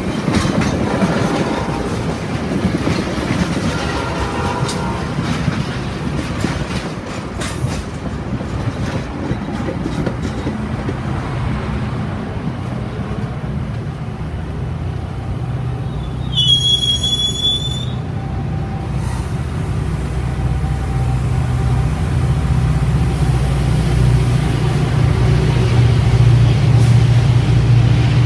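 Metra bilevel passenger cars rolling past close by, with a brief high-pitched wheel squeal about sixteen seconds in. In the second half the steady low drone of the diesel locomotive pushing at the rear of the train comes in and grows louder near the end.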